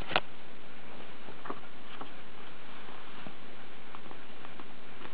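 Steady hiss with a sharp click right at the start, then a few faint scattered ticks: a toddler's small mouth and lip sounds while chewing a cookie.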